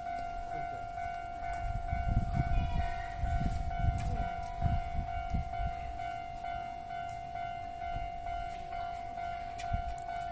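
Japanese level-crossing warning alarm ringing with a steady electronic tone, while a Keio 1000-series electric train passes. The train rumbles and knocks over the rails for a few seconds from about a second and a half in, then eases off.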